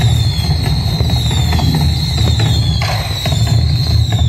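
Fireworks going off without pause: many sharp bangs and crackles over a dense low rumble.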